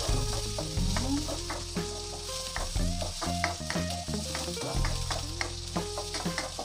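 Chopped garlic and onion sizzling in hot oil in a non-stick frying pan, stirred with a spatula that clicks and scrapes against the pan, over background music.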